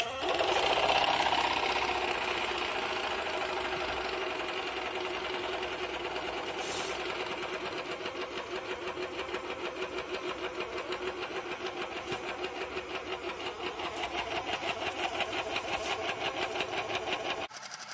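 Amazon Basics 150 PSI portable air inflator switched on, its small electric piston compressor running with a fast, even chatter while it inflates a bicycle tyre. It is loudest just after starting and drops sharply in level near the end.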